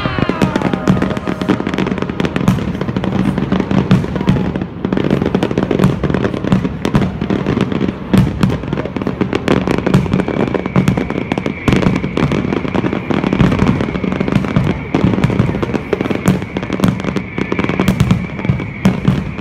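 Aerial fireworks going off in rapid succession: dense crackling and popping with continual bangs. A steady high tone joins about halfway through.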